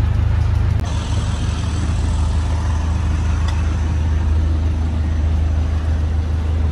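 Houseboat engine running steadily under way, a continuous low drone.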